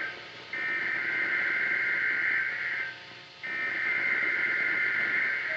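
NOAA Weather Radio SAME/EAS digital header: harsh, buzzy data bursts received on a weather radio with background hiss, marking the start of an alert or test. The end of one burst is followed by two more, each about two seconds long, with half-second gaps between them.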